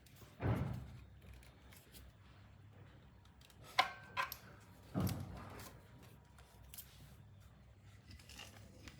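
Handling noises during hand repair work: a dull knock, then two sharp clicks with a brief ring a moment apart, then another dull knock.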